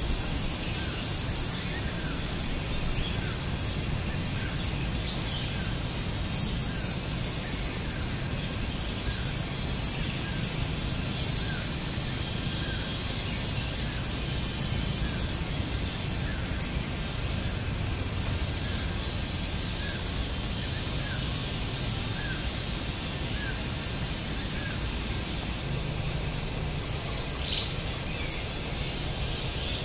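Rural outdoor ambience: insects shrilling steadily with short pulsed trills, and a bird giving short chirps about once a second.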